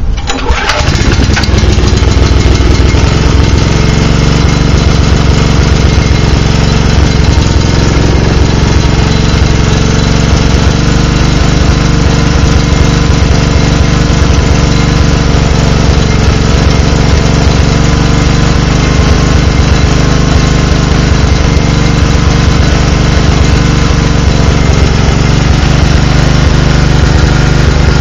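Makita G3500R generator's four-stroke engine catching and then running loud and unevenly on its first start-up after a couple of years standing, which the owner takes to mean the carburettor needs adjusting.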